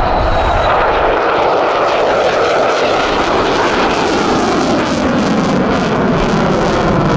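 Loud jet noise from the U.S. Navy F-35C Lightning II's Pratt & Whitney F135 engine as the fighter flies by. It is a continuous rush whose tone sinks and then rises again over the few seconds.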